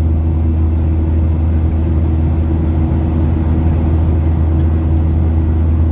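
Steady, loud low drone of an airplane's engines, with a few steady hum tones above it and no change in pitch or level.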